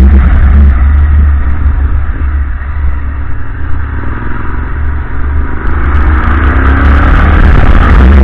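Motorcycle engine heard from the bike's onboard camera, with the pitch rising over the last few seconds as the bike accelerates.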